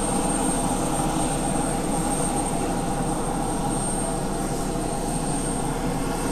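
Aircraft engine noise running steadily, with a thin high whine above it.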